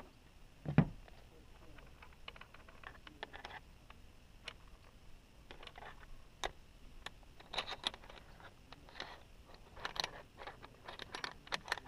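Metal saddle rails and seatpost clamp pieces clicking and rattling irregularly as a saddle is fitted onto the clamp head of a RockShox Reverb dropper seatpost. A single low thump comes a little under a second in.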